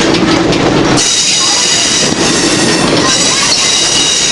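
Steel wheels of a moving open-air train car squealing against the rail, a high steady tone from about a second in until near the end. Under it runs the constant rumble and clatter of the car rolling on old jointed track.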